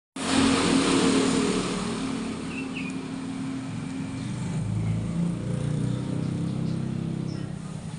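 A motor running with a steady hum, loudest at first, that drops lower in pitch about halfway through.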